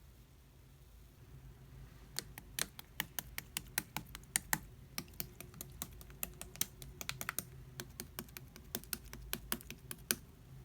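Slime being pressed and worked by hand, giving a rapid, irregular run of crisp clicks and pops that starts about two seconds in.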